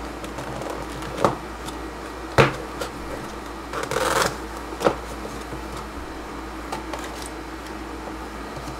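Small cardboard box being opened by hand: a few sharp clicks and taps as the flaps are worked free, the loudest about two and a half seconds in, and a brief papery sliding rustle about four seconds in as the lid is pulled open.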